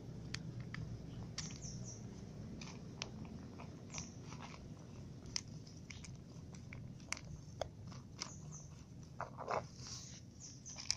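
Cat eating from a clear bowl at close range: irregular crunching and sharp clicks as it chews, over a steady low rumble.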